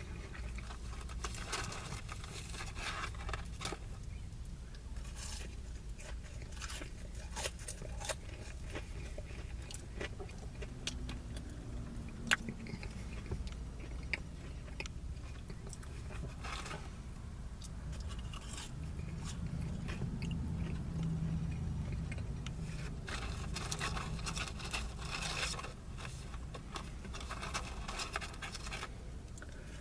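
A person eating French fries, with many short, irregular crunchy bites and chews over a steady low rumble.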